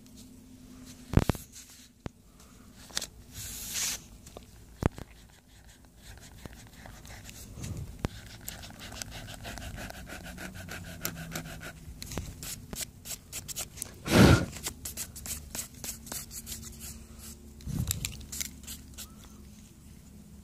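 Pencil scratching and rubbing on paper in short irregular strokes, close to the microphone, with three loud thumps.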